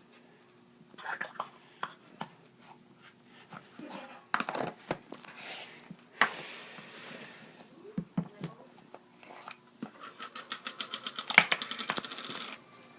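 Slime being squished and stretched by hand, giving irregular sticky clicks and wet pops, with a fast run of pops near the end.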